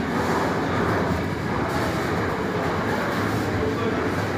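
Freight train of container wagons passing close by: a steady noise of the wagons' wheels running on the rails.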